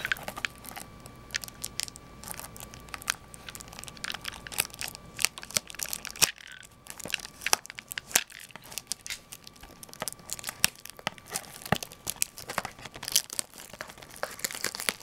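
Plastic shrink-wrap crinkling and tearing as it is peeled off a sealed trading card booster box, with irregular sharp crackles.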